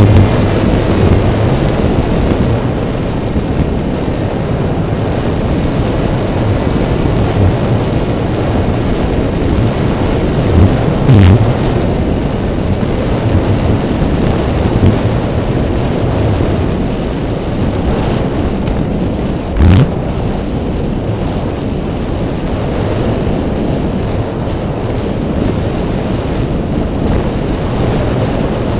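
Wind rushing over the microphone of a drone's onboard camera in flight: a loud, steady rushing noise with low buffeting rumbles, and two sharper thumps partway through.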